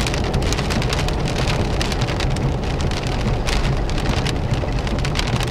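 Heavy rain hitting the windshield and body of a vehicle, a dense patter of many small drop impacts over a steady low rumble, heard from inside the cab.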